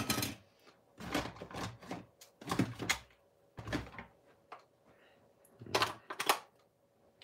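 Knocks, clicks and rustling from hands handling a plastic RC pistol-grip transmitter and rummaging in a small cardboard box to fit its batteries, in about five short separate bursts.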